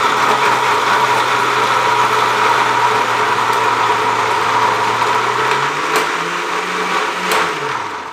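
Countertop electric blender running at full speed, churning bael fruit pulp with milk into a thick shake. The motor's pitch rises a little past halfway; near the end a click is followed by the motor winding down as it is switched off.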